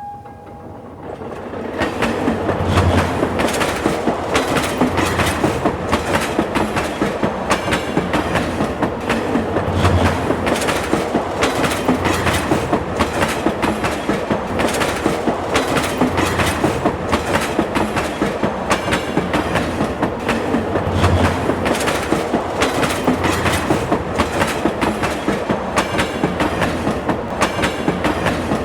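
Train passing on the tracks: a rhythmic clickety-clack of wheels over the rail joints. It builds over the first couple of seconds, then keeps on steady and loud with a heavier low rumble every few seconds.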